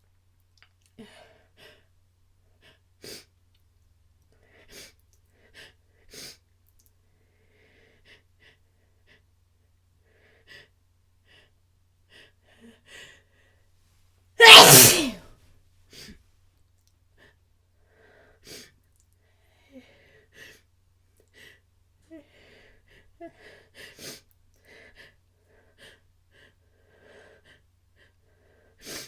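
A person sneezing: one loud, messy sneeze about halfway through. Before and after it come quiet, short, uneven catching breaths and sniffs, the build-up of a sneezing fit.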